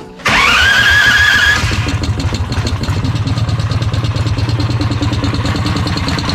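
Small single-cylinder go-kart engine starting: it catches abruptly and runs fast with a rising whine for about a second and a half, then settles into a steady, pulsing idle.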